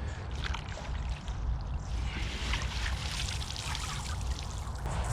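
Water trickling and splashing at the river's edge, over a steady low rumble, with a few light knocks.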